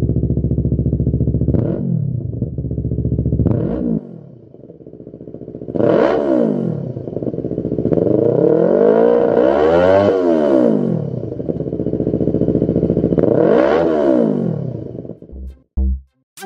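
Yamaha YZF-R3's parallel-twin engine running through a Lextek XP10 full aftermarket exhaust system, idling and then revved: several quick throttle blips, a longer stretch in the middle where the revs rise and fall repeatedly, and another blip near the end. Electronic music with a steady beat comes in during the last second.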